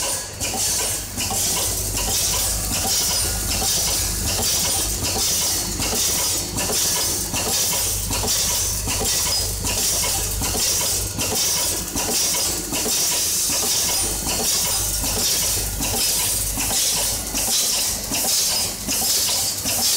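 Automatic hardware-parts counting and bagging machine running, cycling at about 76 bags a minute: an even, rhythmic knock about once a second over a steady high hiss and low hum.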